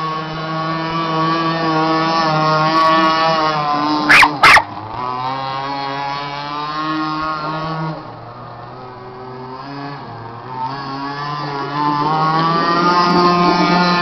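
Radio-controlled model boat's motor running at speed with a steady buzz. Two sharp knocks come close together about four seconds in. About eight seconds in the motor drops lower and quieter, then picks back up toward the end.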